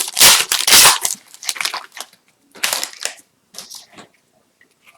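Plastic wrapper of a hockey card pack being torn open and crumpled. There is a loud crinkling rip in the first second, then shorter scattered rustles of the wrapper and cards being handled.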